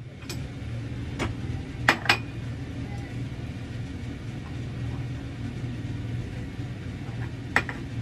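A few sharp clinks of tableware over a steady low hum, as a small ceramic plate and a silicone mould are handled on a steel counter beside a steel bowl. The two loudest clinks come close together about two seconds in, and another comes near the end.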